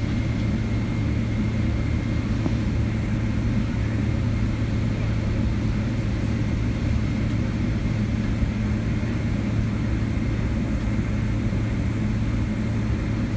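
Boeing 777-200LR's GE90 turbofan engines running at idle thrust while taxiing, heard inside the cabin as a steady low drone with a faint high whine over it.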